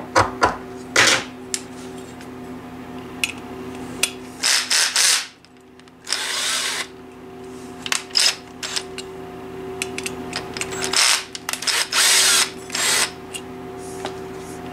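A cordless drill/driver running in several short bursts, each under a second, with clicks of the tool and screw between them, as a tight mounting-bracket screw is backed out.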